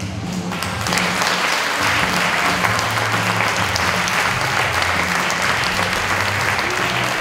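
Audience applauding, swelling up about a second in and holding steady, over music with a low bass line.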